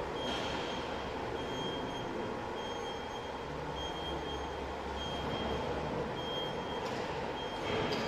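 Driverless factory tugger (automated guided vehicle) moving while towing a wheeled parts rack: a steady running noise from the vehicle and rolling casters, with a short high warning beep about once a second.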